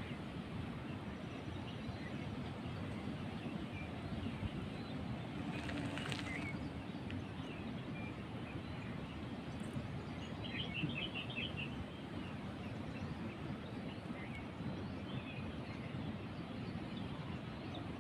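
Outdoor ambience: steady background noise with scattered bird chirps, and a quick run of chirps about eleven seconds in.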